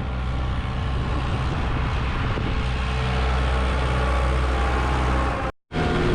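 Diesel tractor engine running steadily under way, a constant low drone. It cuts out abruptly for a moment near the end, then the engine sound comes back.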